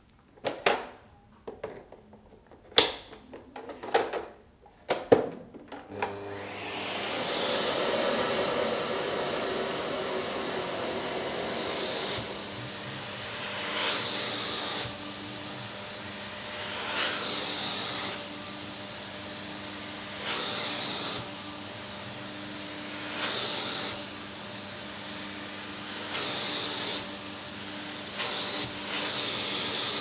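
Kärcher VC 6100 canister vacuum cleaner: a run of clicks and knocks as the machine is handled and switched, then its motor starts about six seconds in and runs steadily. Every three seconds or so the noise swells with a rising hiss as the hose nozzle is drawn across sofa upholstery.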